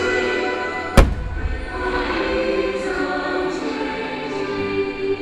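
Holiday show music with a choir singing, and a single loud firework shell burst about a second in, with a short low rumble after it.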